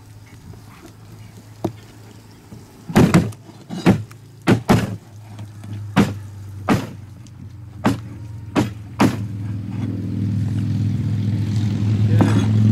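A dozen or so sharp knocks and clacks, then a steady low motor hum that grows louder near the end.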